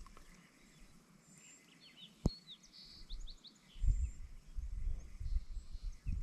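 Quiet lakeside ambience: a few small birds chirping briefly in the middle, with a single sharp click just after. From about four seconds in, a low uneven rumble sets in.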